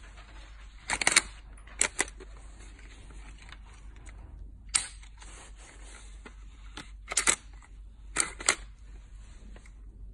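Sharp metallic clicks from the mechanism of a G&G GM1903 airsoft rifle, an M1903A3 replica, worked by hand. The clicks come in short pairs and clusters, about five times, with pauses between.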